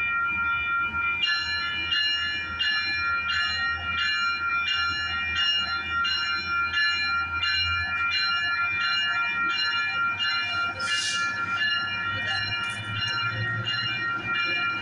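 Grade-crossing warning bell ringing, about three strikes every two seconds, over the running of a Metrolink commuter train as it pulls out past the platform. A short hiss of air about eleven seconds in.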